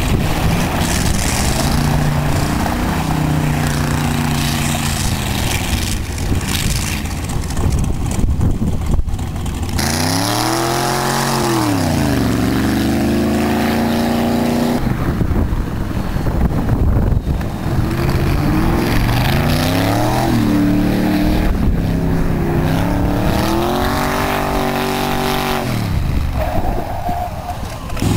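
Ford hot rod engines running hard as the cars accelerate across the tarmac, the engine pitch climbing and dropping again several times, with one sharp rise and fall near the middle.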